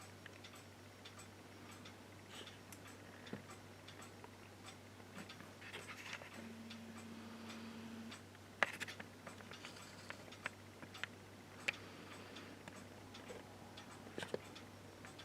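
Faint room tone: a steady low hum with soft, regular ticking, a short steady low tone about six seconds in, and a few sharp clicks after it.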